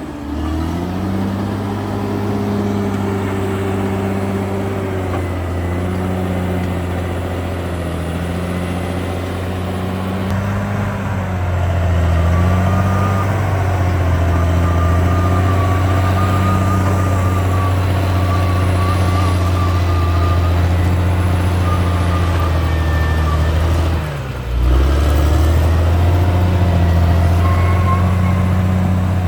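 CAT D6R XL bulldozer's diesel engine running under working load, its pitch rising and falling as the load changes, with a faint wavering whine above it. The sound briefly drops out about five seconds before the end.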